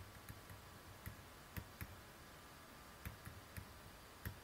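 Faint, scattered clicks of a stylus tapping on a tablet screen during handwriting, about seven or eight taps at uneven spacing over quiet room tone.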